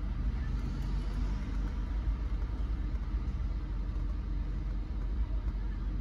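Steady low rumble of a car being driven along a road.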